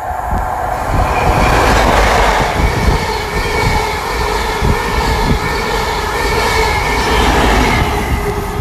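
CrossCountry High Speed Train, a Class 43 diesel power car at each end, running through the station at speed without stopping: engine note and wheel clatter over the rails. The sound builds over about the first second and stays loud as the coaches go by, with the rear power car passing near the end.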